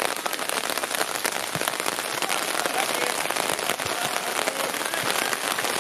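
Steady rain: a dense hiss of many small drop ticks, running evenly throughout.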